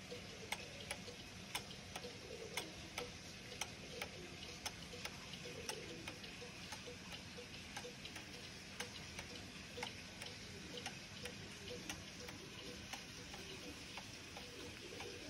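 Old wooden-plate cuckoo clock movement ticking steadily, about two ticks a second.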